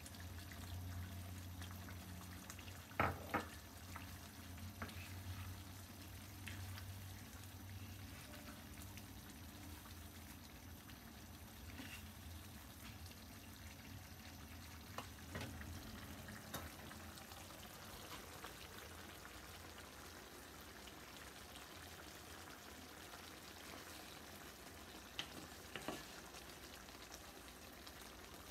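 Turnip and potato curry simmering in its gravy in a frying pan, a faint steady sizzle and bubbling. A wooden spoon knocks against the pan a few times, most sharply about three seconds in, with a low hum under the first several seconds.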